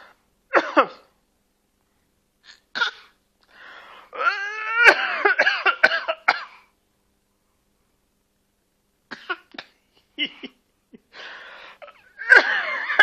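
Fake coughing: a string of short, separate coughs and hacks imitating an adult's cough, with a longer high-pitched voiced cough-like stretch in the middle and a final bout near the end.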